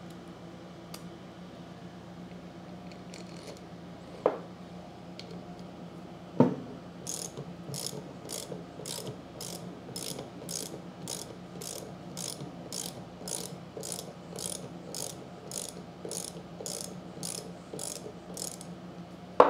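Socket ratchet on a plunger retainer bolt of a CAT pressure washer pump, its pawl clicking at about two clicks a second in the second half. There are a couple of knocks before it, and a loud clack at the very end.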